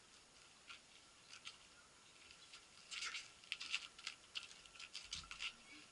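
Faint, irregular crunching steps on a dirt and gravel trail, sparse at first and more frequent from about halfway through.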